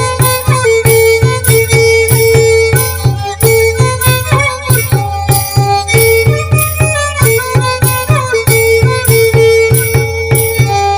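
Santali folk instrumental music: a banam, the Santal bowed fiddle, playing a sliding melody over a steady drum beat of about three strokes a second.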